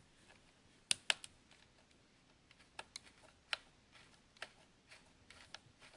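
Small Phillips screwdriver loosening the captive screws of a laptop's plastic memory cover, making a series of sharp, irregular clicks and ticks, the loudest two close together about a second in.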